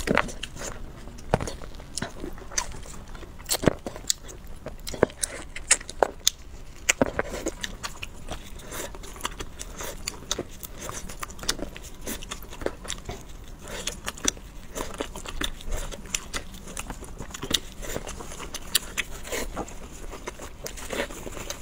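Eating crayfish: shells cracked and peeled by hand, and chewing, heard as many sharp, irregular clicks and crackles.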